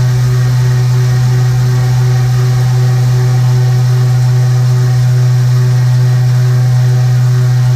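A loud, steady low hum with fainter steady tones above it, unchanging throughout.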